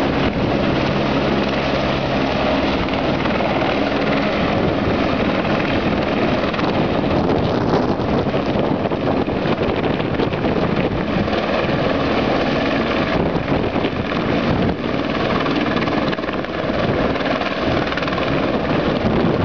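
Army helicopter's rotor and engine running loud and close, with a steady low hum in the first few seconds.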